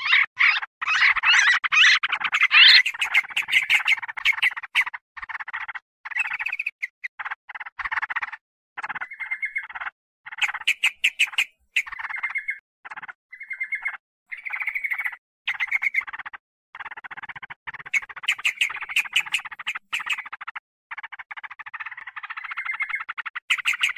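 Yellow-vented bulbuls (trucukan) calling noisily: harsh, rapid chattering in bursts that stop and start. The bursts run almost without a break at the beginning and again near the end, and are more broken up in the middle.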